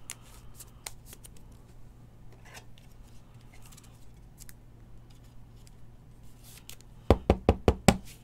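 Clear rigid plastic card holder being handled as a trading card is slid into it: light scattered clicks and rubbing of plastic, then near the end a quick run of about six sharp plastic clicks.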